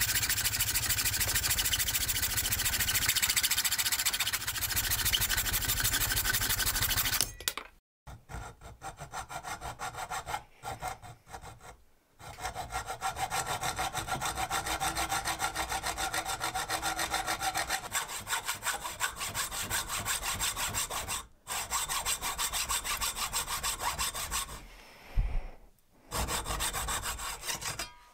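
Hacksaw cutting through the end of a wooden hammer handle, with steady rasping back-and-forth strokes. The sawing pauses briefly about seven seconds in, and again near the end, where there is a single knock before the strokes resume.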